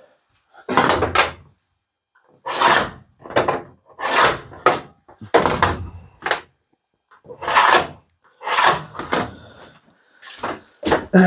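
Steel scriber scratching a cut line into the van's sheet-metal panel, in a series of short rasping strokes, roughly one a second.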